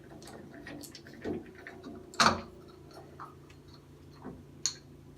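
Scattered light clicks and taps of a Phillips screwdriver and a shower-valve handle being worked loose, with one louder knock about two seconds in, over a low steady hum.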